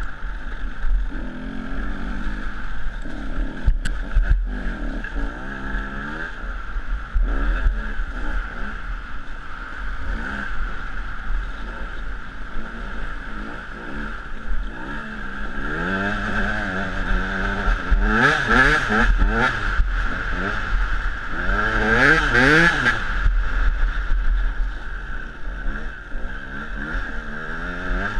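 Dirt bike engine revving up and easing off again and again, with its two hardest, highest-revving pulls about two-thirds of the way through.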